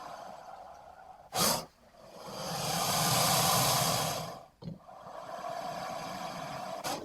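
Dimetrodon creature sound effect: breathy hissing and snorts. A short sharp snort comes about a second and a half in, then a long hissing breath swells and fades, with another brief snort after it and a steady low hiss underneath.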